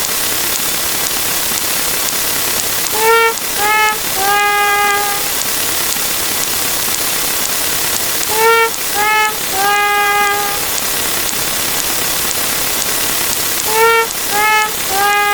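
Sad trumpet sound effect, a descending three-note 'wah-wah-wah' with the last note held, repeating three times about every five and a half seconds over a steady rain-like hiss.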